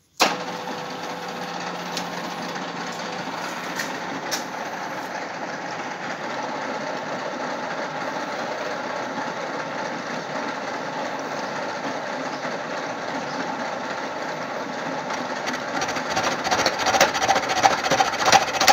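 Vertical milling machine switched on: it starts abruptly and the spindle runs with a steady whirr while the end mill feeds toward a steel bushing. Near the end the cutter begins biting into the bushing and the sound turns rougher and uneven.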